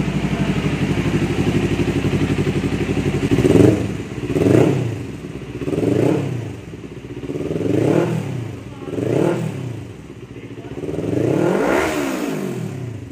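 Kawasaki Ninja 400's parallel-twin engine, warmed up and in neutral, breathing through an aftermarket titanium slip-on exhaust. It idles steadily for a few seconds, then is revved in about five throttle blips that rise and fall, the last one longer.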